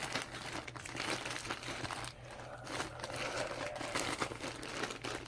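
Parcel packaging crinkling and rustling as it is handled and worked at to get it open, with a brief lull about two seconds in.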